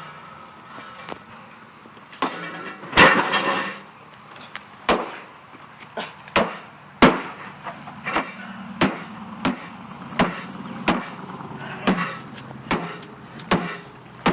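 Tomahawk blade striking a steel water-heater tank again and again: a string of sharp metallic strikes, with a heavy blow about three seconds in that rings on for about a second, then the blows come steadily at roughly one every two-thirds of a second.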